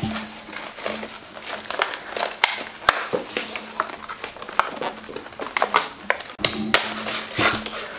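Irregular clicks, taps and crinkles of small plastic toys and their packaging being handled.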